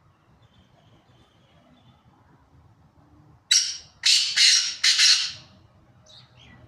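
Black francolin calling: a burst of four loud, harsh, grating notes, one and then three run together, lasting about two seconds from just past halfway. Two faint short notes follow near the end.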